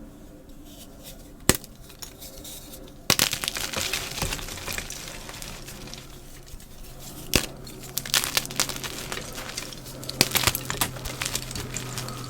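Gym chalk being crushed and crumbled: a single sharp snap about a second and a half in, then dense crunching and crackling from about three seconds in, with more sharp cracks later on.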